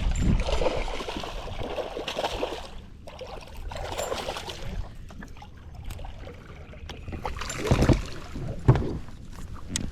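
Water splashing in several bursts as a hooked bass is fought at the surface and brought in to the boat, with a sharp knock near the end.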